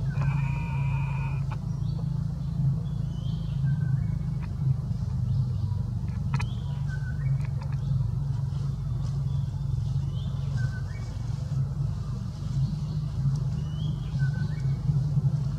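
A steady low engine-like hum, such as idling or passing traffic, runs throughout. Short high chirps break in every second or two, with a brief pitched call in the first second and a half and one sharp click about six seconds in.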